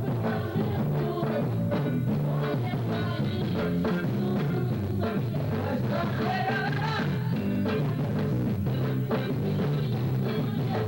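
Band music with a drum kit, a steady beat and a pitched melody line over a bass line.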